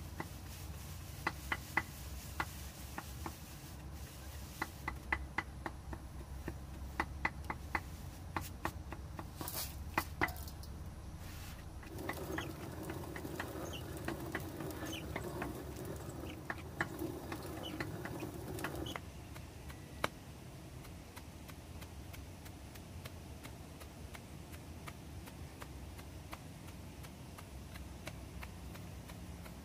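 Stone hand mill grinding dried corn. First comes a run of sharp separate clicks of dry kernels, then from about twelve seconds in a steady stone-on-stone grinding for about seven seconds, which stops abruptly.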